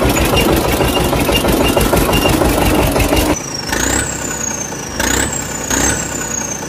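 Tractor engine sound running steadily. About three and a half seconds in it cuts to a different engine sound: a low drone with a high whistle that rises sharply and slides back down about once a second.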